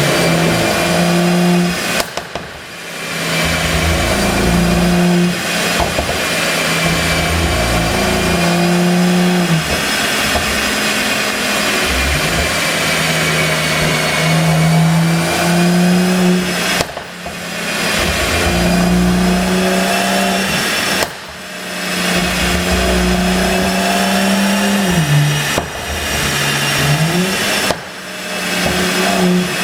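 Mercedes-Benz E450 engine and tuned exhaust under throttle, holding steady revs and stepping between pitches. The sound drops off briefly several times and then builds back up.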